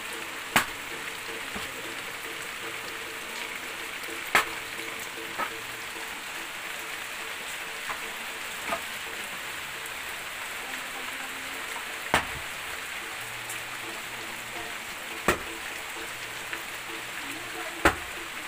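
Steady rain falling on leaves and ground, an even hiss, with a sharp single tap every few seconds.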